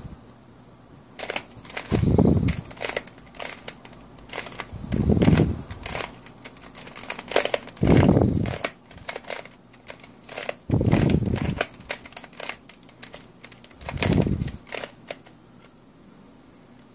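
Plastic pieces of a Wolf Tooth Cube, a skewb-type twisty puzzle, clicking and clacking as it is turned by hand. A duller, lower sound of handling and turning comes about every three seconds.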